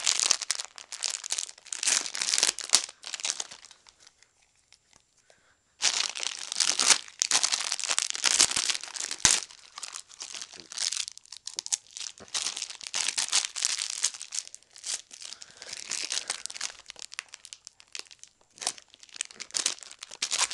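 A dog chewing and shaking a plastic candy bag, the plastic crinkling in bursts. It goes nearly quiet for about two seconds near the start, then crinkles again.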